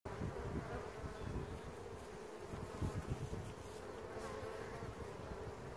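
Honeybees buzzing as they fly around the hives, a steady drone.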